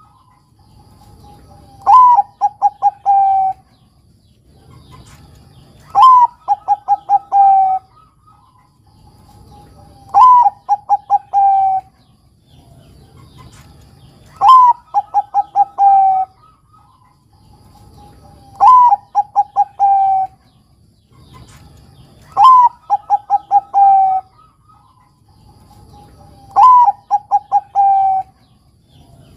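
Zebra dove (perkutut) of the Thai 'Bangkok' strain singing: seven phrases about four seconds apart. Each phrase is a rising note, then a quick run of short staccato coos, ending in a longer held coo.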